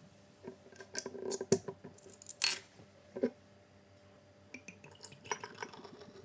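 Small metal parts clicking and clinking as they are handled, with a bright ringing clink about two and a half seconds in and a knock shortly after: a padlock and its keys being moved about.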